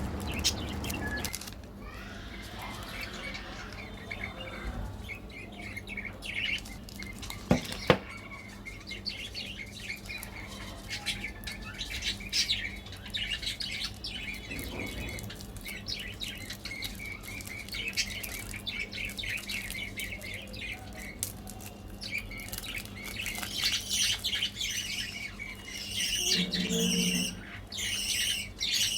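Small birds chirping and squawking in short repeated calls, over a steady low hum, with two sharp clicks about eight seconds in.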